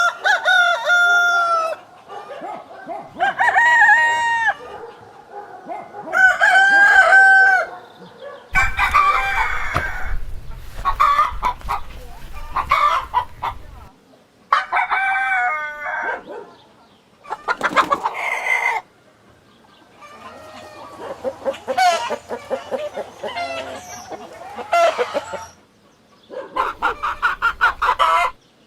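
Rooster crowing three times, each crow a long pitched call lasting about a second and a half. After that come bursts of chicken clucking and squawking, some of them over a low rumble.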